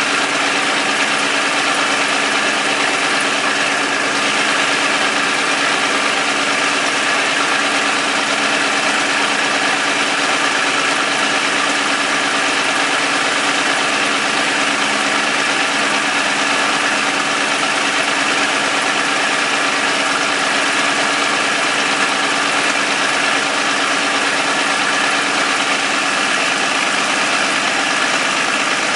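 Vintage Caterpillar D13000 six-cylinder diesel engine running steadily, with no change in speed or load.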